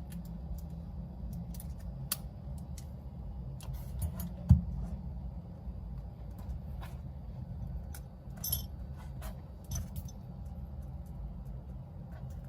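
Light clicks and taps of small phone-repair tools and parts being handled, with one sharp knock about four and a half seconds in and a small metallic jingle near the end, over a steady low hum.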